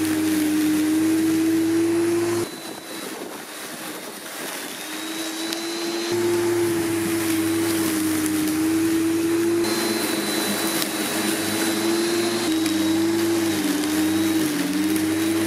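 Parkside PRM 1300 A1 electric lawnmower's 1300 W motor running with a steady whine as it cuts grass. The sound drops away suddenly about two and a half seconds in and comes back around six seconds. Near the end the pitch wavers and sags.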